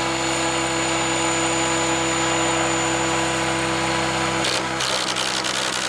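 SAB Goblin Kraken electric RC helicopter hovering just above the ground, its motor and main rotor giving a steady, high whine. About four and a half seconds in, the steady pitch breaks off and gives way to a rougher, choppier sound.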